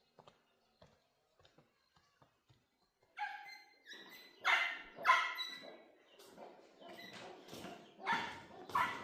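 A dog barking: faint taps at first, then a run of loud barks starting about three seconds in.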